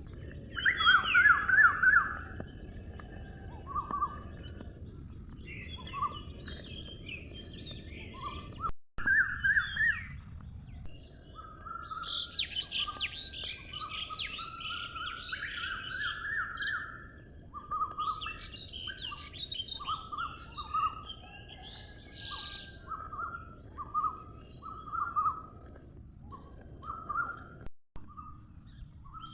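Several birds calling outdoors: short repeated chirps go on throughout, with a dense flurry of higher chirping in the middle, over a steady high hiss and low background noise. The sound cuts out briefly twice.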